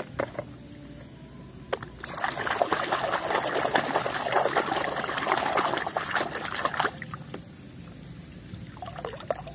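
A hand sloshing and scrubbing a muddy plastic toy in a basin of soapy water, splashing for several seconds from about two seconds in until about seven. Before that come a couple of light knocks of plastic toys in a plastic basket.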